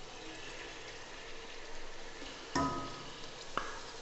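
Spiced tomatoes and potatoes sizzling low in an aluminium pot as a wooden spoon stirs them. About two and a half seconds in, a knock against the pot rings briefly, and a sharp click follows a second later.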